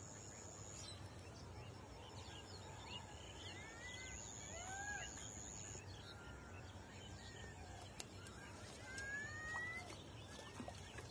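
Faint outdoor pond-side ambience: scattered bird calls, short rising and falling chirps, over a thin steady high whine that starts and stops, with a single sharp tick about eight seconds in.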